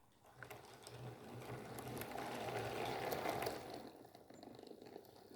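Model train running along the track, its small electric motor and wheels making a faint mechanical rattle that grows louder towards the middle and fades away near the end as it passes.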